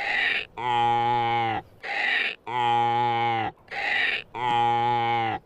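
Donkey braying hee-haw three times in a steady rhythm: each bray is a short breathy 'hee' followed by a longer pitched 'haw' that drops in pitch as it ends, repeating about every two seconds.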